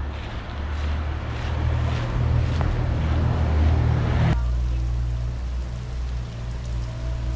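Steady low rumble of outdoor street noise. It is louder in the first four seconds, then changes suddenly to a quieter sound at a cut.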